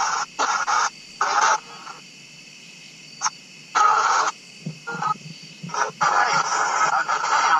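Ghost box (spirit box) sweeping through radio stations: short choppy bursts of static and clipped radio sound broken by gaps of hiss, with a longer stretch near the end.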